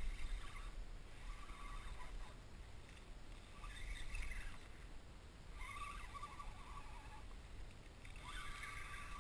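Water lapping and sloshing against a plastic kayak hull over a steady low rumble, with several short scraping, splashy bursts, the longest about a second, near the middle and the end.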